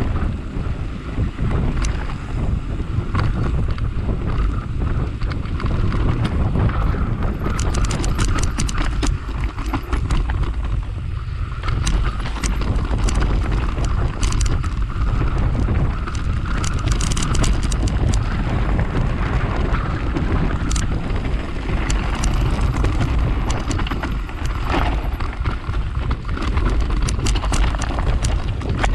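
Mountain bike descending a rocky dirt track: tyres rolling over loose stones, with frequent sharp clicks and rattles, under a heavy rumble of wind buffeting the microphone.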